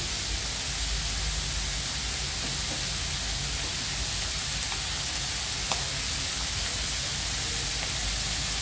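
Shellfish, chillies and shallots sizzling in a wok over a gas flame: a steady frying hiss, with one small tick a little before six seconds in.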